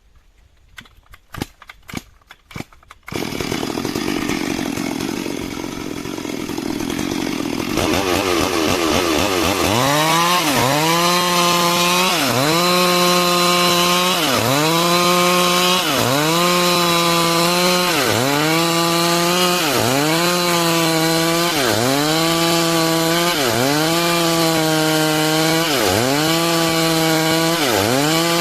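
Stihl MS 382 two-stroke chainsaw cutting wood along a log to make planks. After a few sharp knocks it starts running loudly about three seconds in, speeds up around eight seconds, then its engine pitch dips and recovers in a steady rhythm about every second and a half as it cuts.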